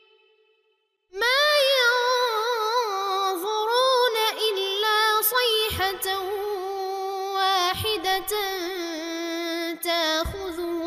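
A male Quran reciter chanting in melodic tajweed style, with long drawn-out vowels that bend through ornamented pitch turns. He comes in about a second in, after a brief silence between verses.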